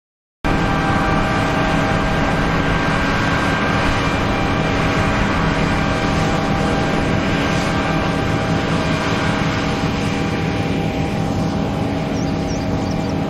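A machine running steadily: a loud hum with several held tones over noise. It cuts in suddenly about half a second in and eases slightly near the end.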